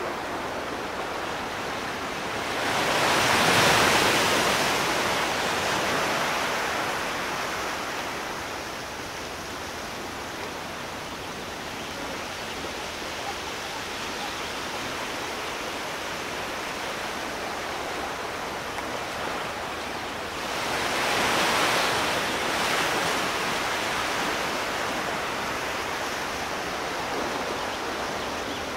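Sea surf: a steady rush of waves, with two louder breakers swelling up and fading, about three seconds in and again about twenty-one seconds in.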